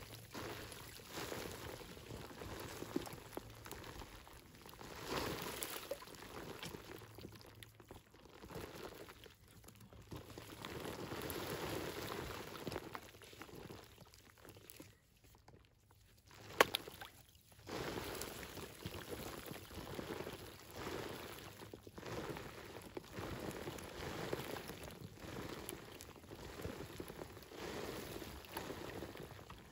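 Fingers scraping and crumbling loose, dry soil and clods on a creek bank, with dirt trickling and pattering down in uneven stretches. A single sharp click a little past halfway.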